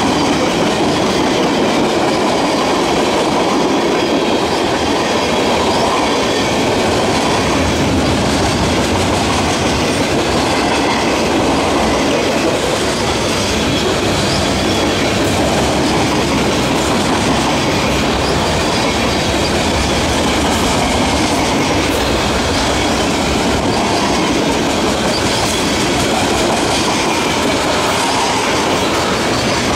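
Freight train tank cars rolling past close by: a steady rumble of steel wheels on rail, with the clack of wheels over rail joints.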